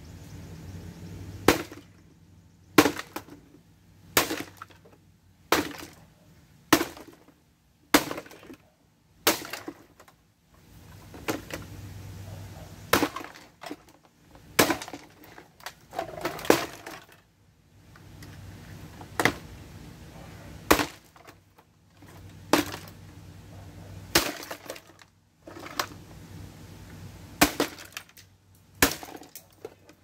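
A space heater being smashed: about twenty sharp blows from a hammer and a hatchet, roughly one every second and a half, each with its housing cracking and breaking apart.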